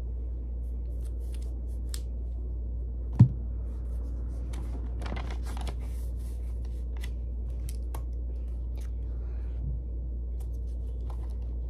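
Small clicks and rustling from handling markers, paper and a pair of children's scissors at a table, with one sharp thump about three seconds in, over a steady low hum.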